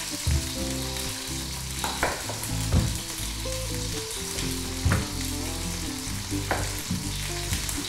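A frying pan sizzling steadily in hot oil, with a chef's knife cutting down through a celeriac and knocking on a wooden chopping board about six times.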